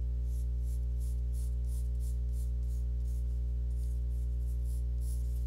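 Pencil sketching on paper: short scratching strokes, about three a second, over a steady low hum.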